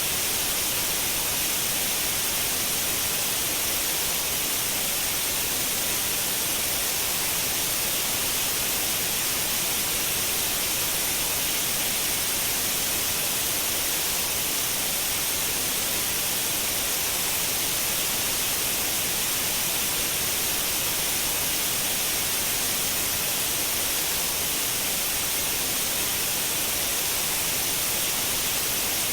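Continuous white noise: a steady, even hiss with no change, heaviest in the high end.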